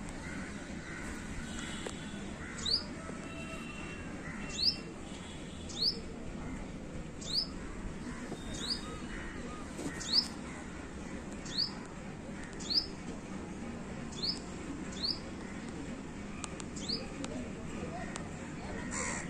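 A bird giving a series of short, sharp chirps, each one a quick upward-sweeping whistle, repeated about a dozen times at roughly one- to one-and-a-half-second intervals over a steady low background hum.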